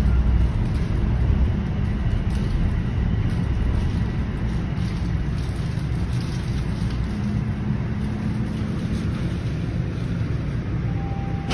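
Toronto Rocket subway train heard from inside the car as it brakes into a station: a steady low rumble from the wheels and running gear that eases slightly as the train slows to a stop.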